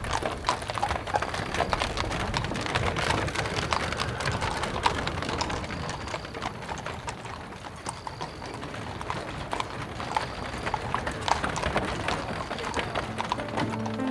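Horses' hooves clip-clopping at a walk as a horse-drawn carriage passes, with irregular hoof strikes over the rumble of the moving carriage.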